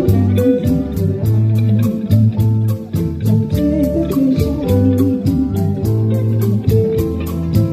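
Band playing an instrumental passage of a pop song: guitar melody over bass guitar with a steady beat of about four strikes a second, no singing.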